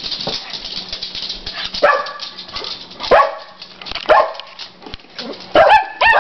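Dogs barking: single barks a second or so apart, then a quick run of barks near the end.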